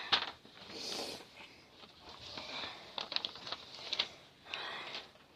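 Light handling noises: scattered short clicks and soft rustles, with a few breathy hisses.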